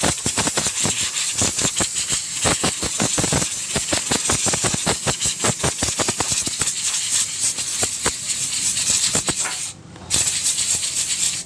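Compressed air hissing from a blow gun as it is blown through a dirty pleated paper air filter, with a fast crackling rattle over the hiss. The air cuts off briefly about ten seconds in.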